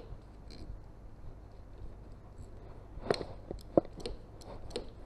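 Light clicks and knocks from a motorcycle's aftermarket clutch lever and its cable being worked by hand while the clutch free play is set. They start about three seconds in, one sharper than the rest.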